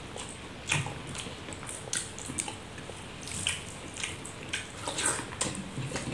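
Eating sounds of a person eating rice by hand from a banana leaf: irregular wet clicks and smacks from chewing and from fingers mixing curd rice.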